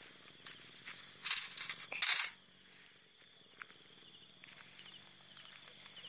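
Two short, loud swishing rustles of grass and weeds brushed while walking along a field path, about a second and two seconds in, followed by quiet outdoor background.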